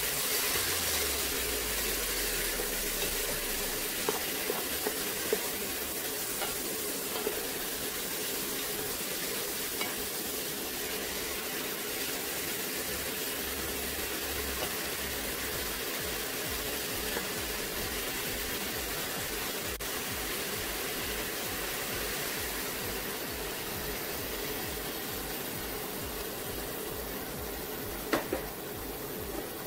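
Red lentils and chopped vegetables sizzling in a hot pot while a wooden spoon stirs them, a steady frying hiss with a few short clicks from the spoon. A louder click comes near the end.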